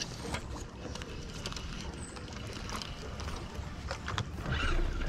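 Steady low rumble of wind and water around an open bass boat, with scattered small knocks.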